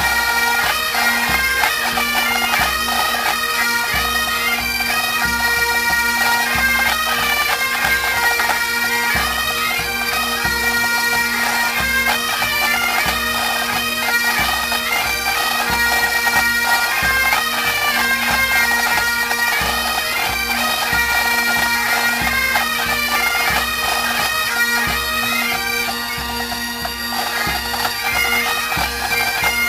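A pipe band playing: Great Highland bagpipes with steady drones under the chanter melody, and a bass drum beating time below.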